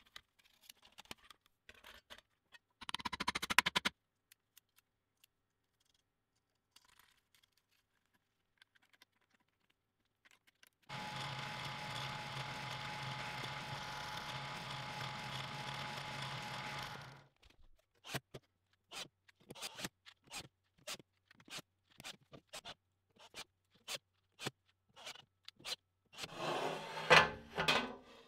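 A drill press motor running steadily for about six seconds in the middle, between scattered clicks and taps of metal and wooden parts being handled. A short clattering scrape comes a few seconds in, and near the end a steel plate scrapes as it slides across a steel bench top.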